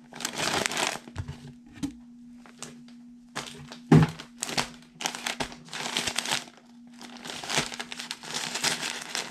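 Brown kraft paper wrapping crinkling and rustling in irregular bursts as a bundle of folded clothes is lifted out and unwrapped, with one dull thump about four seconds in.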